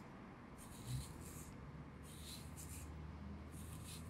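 A hair comb drawn firmly back through the hair over the scalp, making about three faint scratchy strokes roughly a second apart, with a soft low bump about a second in.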